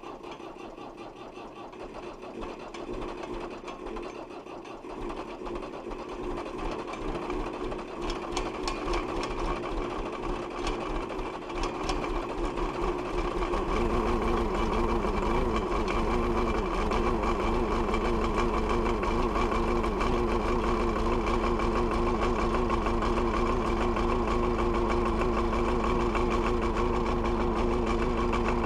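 Perkins 4.236 four-cylinder diesel in a JCB 1400B backhoe, started cold on the starter. It cranks and fires unevenly, getting louder, then catches about 14 seconds in and settles into a steady idle.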